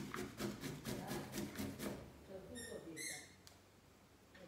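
Peeled zucchini rubbed on a metal hand grater, rasping in even strokes about four a second that stop about two seconds in. A short run of high chirps follows near three seconds in.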